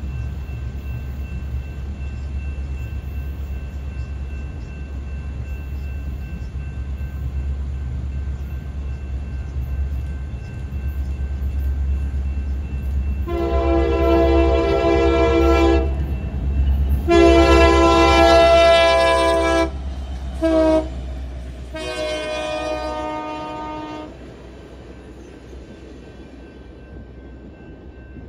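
BNSF diesel locomotive leading a track geometry train approaches with a steady low engine rumble and blows its multi-chime air horn in the grade-crossing pattern: long, long, short, long. The horn begins about halfway through, and the rumble eases after the last blast.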